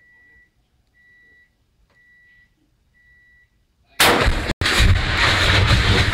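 Four short beeps, one a second, then about four seconds in a single huge blast as a .270 rifle round hits a half-full 5-gallon propane tank heated on a fire and the tank bursts into a fireball. A loud continuous roar of burning gas follows; the sound cuts out for an instant just after the blast.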